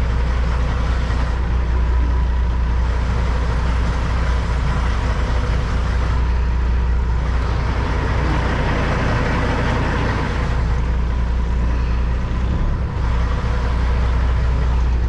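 Kenworth W900 semi truck's diesel engine running at low revs, a steady low drone, while the truck is manoeuvred slowly.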